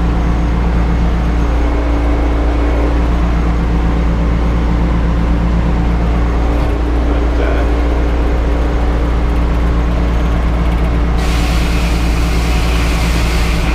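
Sawmill machinery running with a steady, loud low drone. About eleven seconds in, a higher hissing noise joins it.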